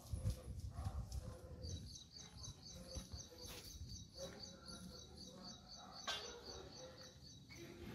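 High, rhythmic chirping, about four chirps a second, starting about two seconds in and stopping shortly before the end, over a low rumble.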